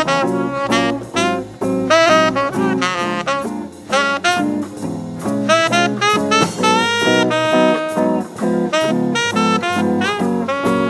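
Swing big band jazz: a tenor saxophone solos with short, quick phrases and a few held notes over a steady bass line and drums.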